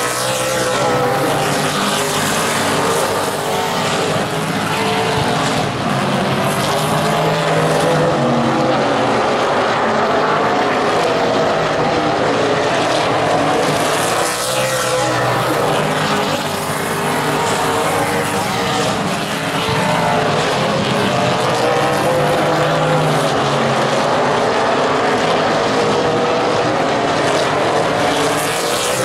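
Super late model stock cars racing on a short oval, a pack of V8 engines running hard at full throttle, their pitch repeatedly rising and falling every few seconds as the cars pass.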